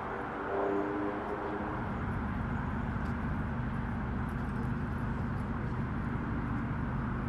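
Steady low hum of vehicle engine and traffic noise, with a brief higher tone about a second in.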